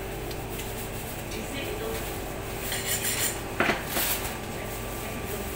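Clinks and scrapes of a butcher's knife working through a pork carcass on a cutting table, with a sharp knock about three and a half seconds in.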